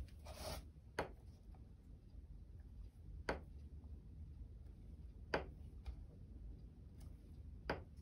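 Four light, sharp taps about two seconds apart as a small brush works black gesso over stray paint dots, with a faint brief rustle near the start.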